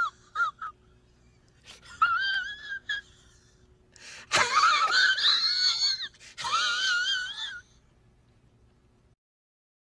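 Three high-pitched, wavering wailing cries, the middle one sliding up at its start and the loudest, with a few sharp clicks around them.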